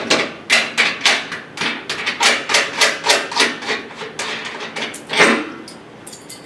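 Wing nuts being spun off threaded studs by hand, and a removable handle rattling against a corrugated metal hurricane-shutter panel. It is a quick run of light metal clicks and taps, about five a second, with a louder clack about five seconds in.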